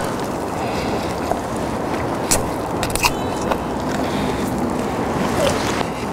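Close-up eating sounds of crispy fried chicken being bitten off the bone and chewed, with a few sharp crunches a couple of seconds in, over a steady rush of outdoor background noise.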